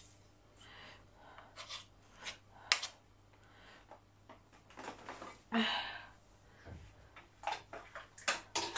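Faint scraping and light taps of a spoon against a plastic mixing bowl as thick cake batter is scooped, with a few sharper clicks near the end.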